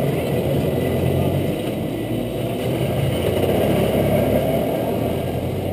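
100cc two-stroke kart engine idling steadily close by, with an even, unbroken hum.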